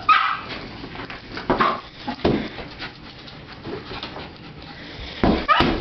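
West Highland white terrier giving a few short barks as she chases a beach ball; the loudest come near the end.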